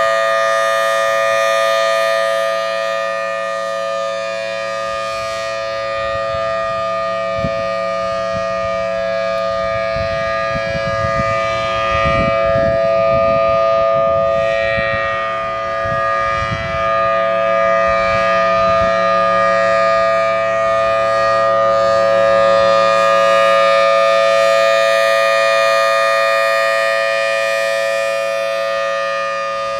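Federal Signal Thunderbolt civil defense siren sounding a steady tone, a chord of two close notes held at full pitch. Its loudness slowly swells and fades.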